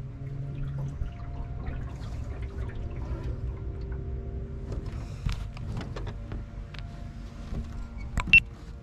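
Water sloshing and lapping against the hull of an aluminum jon boat over a low steady hum, with scattered light knocks. A single sharp click with a brief ring comes near the end.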